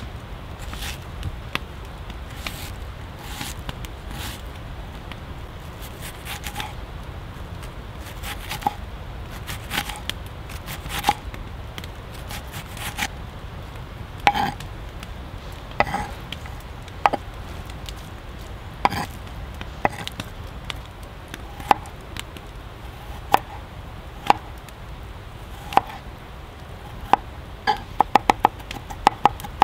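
Chef's knife cutting an onion on a wooden cutting board: scattered, irregular knocks of the blade striking the board. Near the end these give way to a quick, even run of rapid chops as the knife minces.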